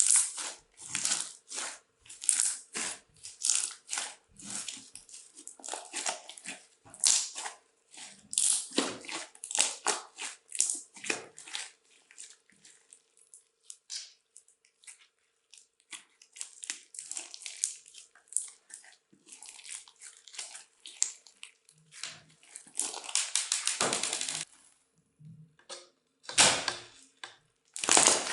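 Crunchy slime being squeezed, pressed and stretched by hand, giving rapid, irregular crackling and popping with short pauses between handfuls. The crackles thin out for a few seconds in the middle, then come as a dense, continuous crunch a few seconds before the end.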